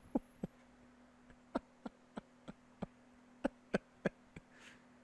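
A run of sharp small clicks, about three a second with a short break in the middle, over a steady low electrical hum.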